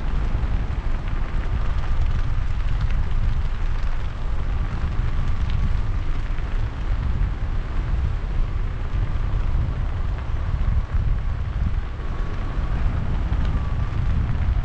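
Wind buffeting the microphone of a paraglider pilot's camera in flight: a loud, steady, gusty rumble of rushing air.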